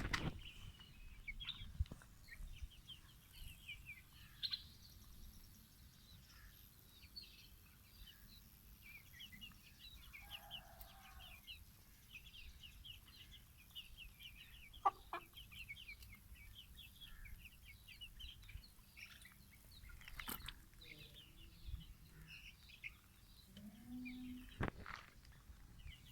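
Chickens clucking quietly, with many short high-pitched cheeps throughout and a few sharp knocks.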